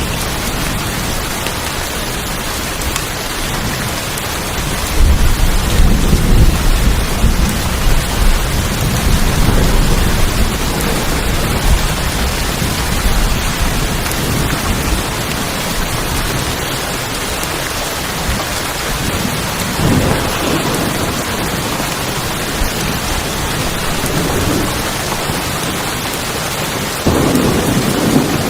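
Steady rain falling on tin roofs, with a low roll of thunder building about five seconds in and lasting several seconds, and shorter rumbles later on and near the end.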